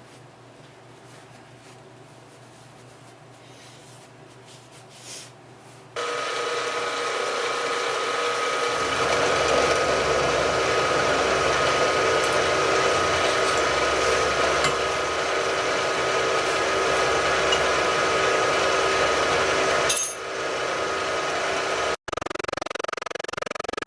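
Milling machine starting up about six seconds in and running steadily with a cutter machining the edge of a metal part, a humming motor under a rough cutting noise. It dips about twenty seconds in and breaks off suddenly near the end.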